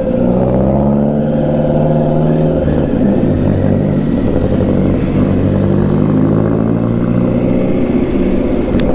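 Motorcycle engine running under way, with the pitch dipping about three seconds in and then rising slowly as the revs build again.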